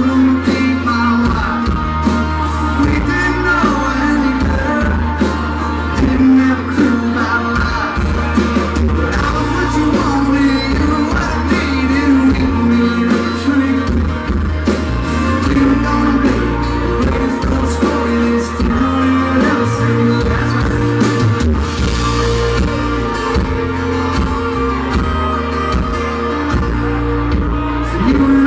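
Live country band playing loudly: drums keeping a steady beat under bass, electric guitar and keyboards, recorded from the crowd with a rough, muddy sound.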